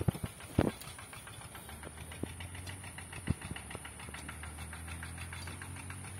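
A small engine running steadily in the background with a fast, even beat. Over it come a few dull thuds of a hoe chopping into the soil, the loudest about half a second in.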